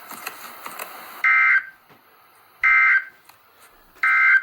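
Emergency Alert System end-of-message signal: three identical short bursts of the SAME digital data tones, a warbling two-tone buzz about a second and a half apart, marking the end of the alert. Before them, faint static hiss with small clicks.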